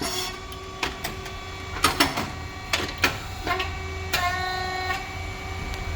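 Rice cake popping machine running: a steady low hum from its hydraulic pump and motor, with a string of sharp clicks and knocks from the machine's moving parts, and a steady whining tone that comes in about three and a half seconds in.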